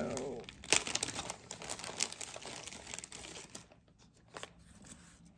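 Packaging crinkling and rustling as it is handled, a dense run of sharp crackles through the first few seconds, then fainter scattered rustles.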